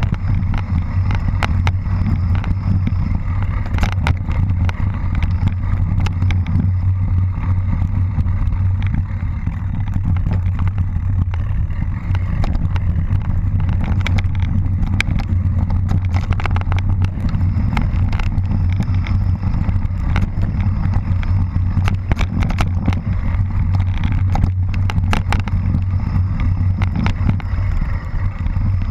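Wind buffeting a camera microphone riding a mountain bike fast downhill on a dirt trail, a steady low rumble, with the bike's frequent rattles and knocks over roots and rocks.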